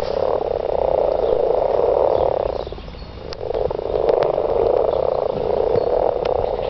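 A breeding chorus of many frogs croaking together, a dense continuous mass of calls that thins out briefly about three seconds in and then picks up again.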